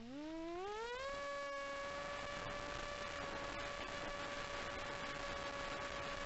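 Electric motor and propeller of an S800 flying wing, recorded by the onboard camera: the whine rises steeply in pitch over about the first second as the throttle comes up, then holds a steady pitch.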